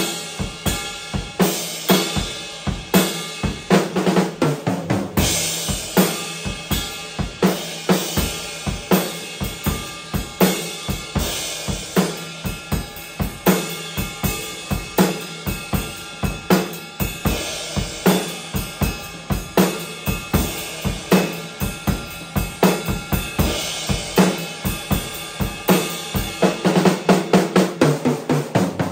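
A 1960s Slingerland drum kit (13-inch tom, 16-inch floor tom, 20-inch bass drum) with 1970s Zildjian cymbals is played in a steady groove of bass drum, snare and cymbals. It builds into a busier fill near the end.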